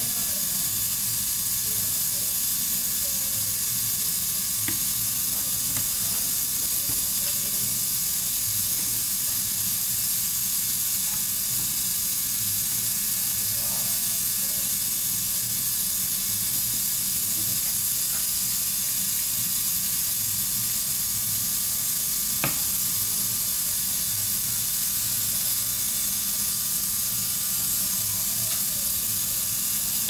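Steady high-pitched hiss with a faint low hum under it, with one light click about three quarters of the way through.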